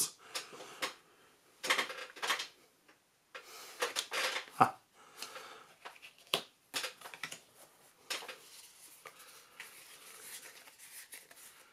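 Magic: The Gathering trading cards being handled by hand, an irregular run of clicks and sliding rustles as cards are picked up, laid onto piles and fanned out. A softer, steadier rustle comes near the end.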